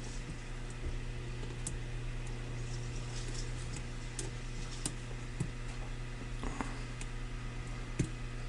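Faint, scattered metallic clicks and ticks of a lock pick working the pins of a Wincos pin-tumbler padlock under tension, a few clicks a few seconds apart, over a steady low hum.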